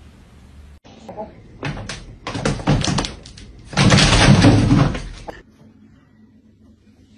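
A run of knocks and bangs, with the loudest clattering burst about four seconds in, then it dies down.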